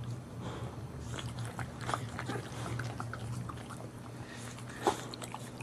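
Boxer mother licking and nibbling her newborn puppies: soft wet licking and chewing noises in scattered small clicks, with one sharper, louder click about five seconds in. A steady low hum runs underneath.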